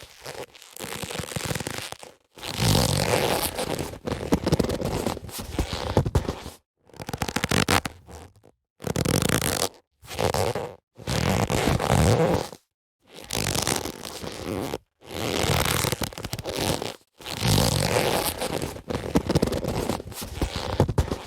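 Boxing gloves handled in a run of separate noisy rubbing sounds, each lasting a second or two, with short silent gaps between them and no sharp punches.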